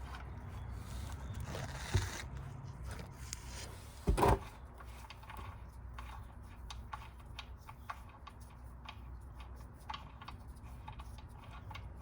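Light clicks and knocks of tools and parts being handled under a car during an oil change, over a steady low rumble. There is a sharp knock about two seconds in and a louder one just after four seconds.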